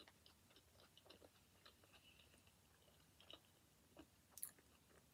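Faint chewing of a mouthful of pizza with the mouth closed: scattered soft clicks, with one slightly louder click about four seconds in.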